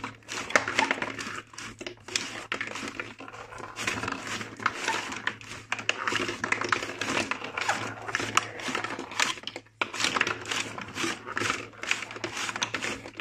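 Glass marbles clicking and rattling as they climb a cardboard stair-step lift and roll through cardboard funnels and tracks: dense, irregular ticks and clacks, over a low steady hum.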